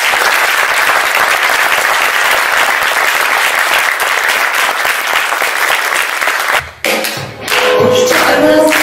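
A theatre audience applauding, with the cast clapping along on stage. The applause cuts off suddenly about seven seconds in, and music starts.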